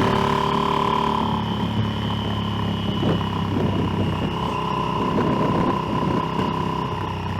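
Motorcycle engine running at a steady, even pitch while riding, heard from the rider's own bike. Through the middle few seconds a rougher, uneven noise mixes in with the engine.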